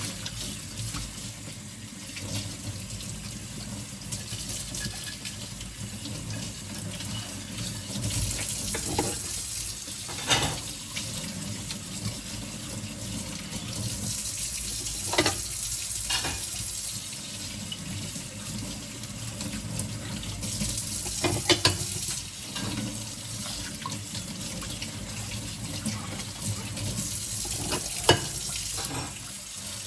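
Kitchen tap running into a sink as dinner plates are rinsed by hand, with a few sharp clinks of plates knocking together.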